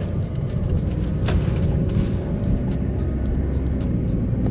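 Road noise inside a moving Toyota Vitz's cabin: a steady low rumble of tyres and engine, with a faint steady hum above it.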